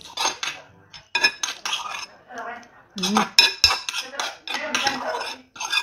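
Metal spoon repeatedly scraping and clinking against a metal bowl as food is scooped up, a string of short, bright strokes.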